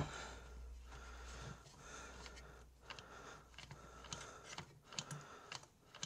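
A knock, then faint, irregular plastic clicking and rubbing from a small-engine recoil starter as its pulley is turned by hand and the starter pawls swing out and in. The pawls are being checked after refitting, and they are working.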